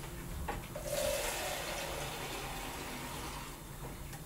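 Water running from a kitchen tap into a plastic measuring jug. The flow starts about a second in and eases off near the end.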